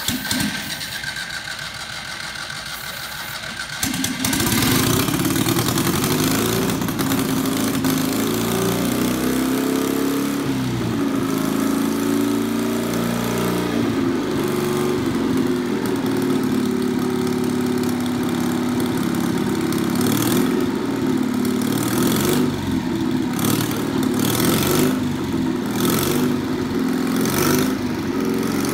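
Citroën 2CV air-cooled flat-twin engine on a home-built motorbike being started with starting fluid: it sputters, catches about four seconds in, then runs unevenly with the revs rising and falling and repeated blips of throttle.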